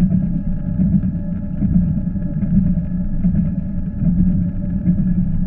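Steady low rumble of a diesel passenger train running at speed, heard from inside the carriage, with a faint steady hum over it.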